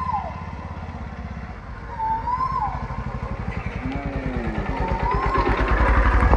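Motorcycle engine running at low speed as the bike approaches, its pulsing note growing steadily louder until it passes close by near the end.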